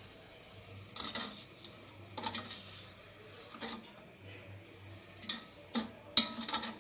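Metal spoon clinking and scraping against an aluminium ring pudding mould while stirring sugar and water for caramel sauce: a few separate clinks, the loudest near the end.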